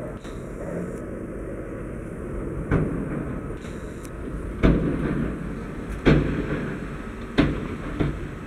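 Tatra tipper truck's diesel engine running with a steady low rumble, broken from about three seconds in by five sharp, heavy bangs, the middle two loudest.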